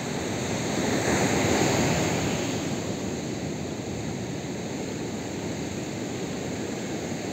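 Surf breaking on a beach as a steady wash of noise. One wave swells about a second in and fades over the next couple of seconds.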